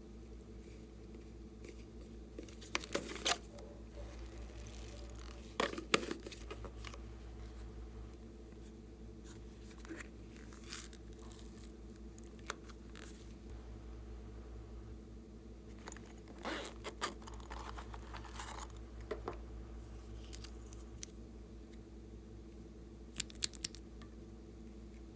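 Slime being handled and mixed by hand: scattered short crackles, pops and sticky clicks in small clusters every few seconds, over a low steady hum.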